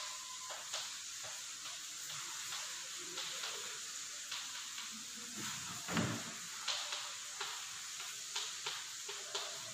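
Chalk writing on a blackboard: irregular small taps and scratches as letters are formed, over a steady hiss, with a louder thump about six seconds in.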